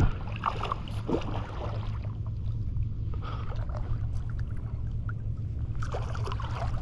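Steady wind rumble on the microphone, with a few faint splashes and sloshes of water.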